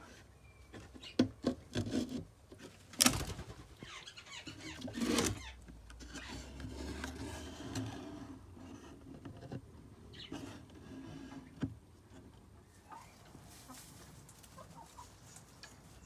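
Knocks and rustles from handling the wooden nest box and moving through the aviary, sharpest about three and five seconds in, then softer rustling. Faint bird sounds of the aviary lie under it.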